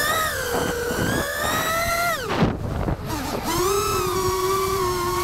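FPV quadcopter's brushless motors whining, heard from the onboard camera. The pitch climbs with the throttle, drops sharply about two seconds in as the throttle is cut, then comes back to a steady whine. Wind rushes over the microphone throughout.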